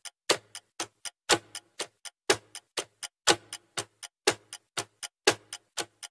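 Clock ticking sound effect for a countdown: sharp ticks about four a second, with a louder, deeper tick once a second marking each number of the count.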